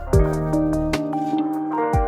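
Background music with held notes, and a deep drum hit just after the start and again near the end.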